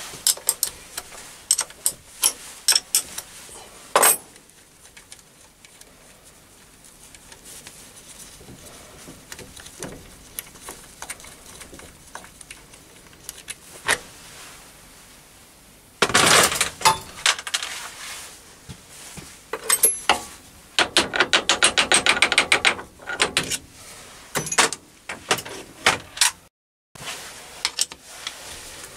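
Metal clinks and clatter of a steel milling slide being unbolted with a spanner and lifted off a lathe's cross slide: a few sharp knocks early, then a busy stretch of clanks with a fast, even run of clicks in the second half.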